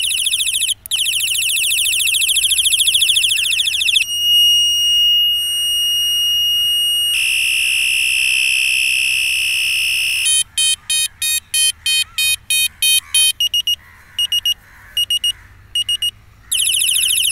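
Electronic siren of a rechargeable handlebar LED bicycle light, switched through its sound patterns: a fast warbling wail, then two steady high tones, then quick pulsed beeps about three a second, then slower broken beeps, and the warbling wail again near the end.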